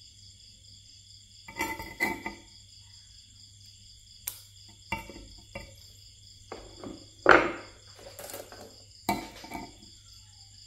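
Small metal pliers clicking against copper wire and tapping on concrete as the wire is bent and trimmed into a hook: a run of sharp separate clicks, the loudest about seven seconds in, with a short ring after it. A steady high insect chirring runs underneath.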